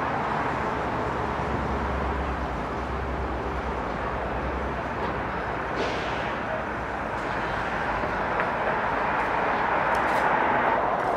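Steady road traffic noise, an even rush without distinct events, with a low hum underneath for a few seconds.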